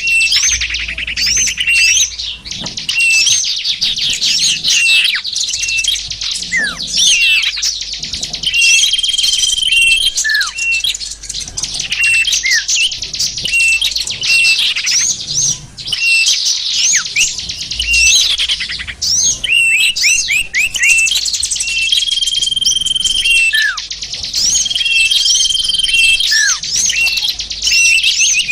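Bird-trapping lure recording of many small birds calling at once: dense high twittering and trills, with a steady held whistle that returns every few seconds and short notes sliding downward.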